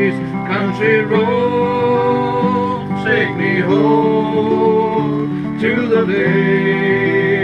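Background music: a guitar-led song with singing.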